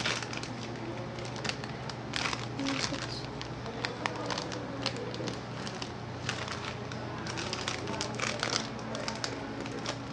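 Plastic snack packet crinkling as it is handled, in short, irregular crackles.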